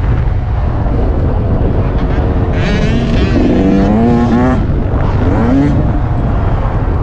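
Yamaha YZ125 two-stroke dirt bike engine revving up and down as it is ridden around a dirt motocross track, with pitch climbs about halfway through and again a little later. Heavy wind noise on the microphone runs underneath.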